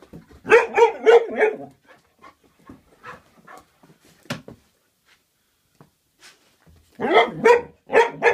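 Vizsla barking excitedly in two quick bursts of about four barks each, one near the start and one near the end, with a few faint short sounds in between; the dog is eager to be walked.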